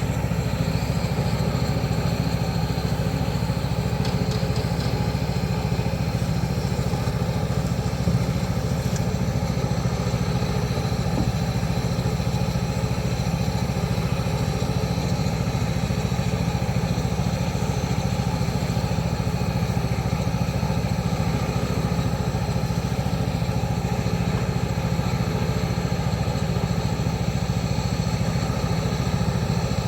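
A small engine running steadily at one constant speed, with a deep even hum and a few faint clicks.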